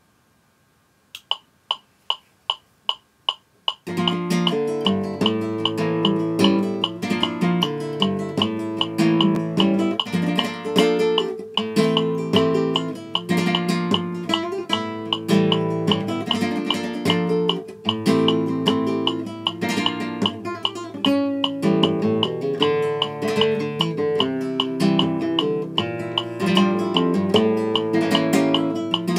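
Flamenco guitar playing tangos, mixing picked melodic lines and strummed chords. It is preceded by a short run of eight evenly spaced clicks, about three a second, and the guitar comes in about four seconds in.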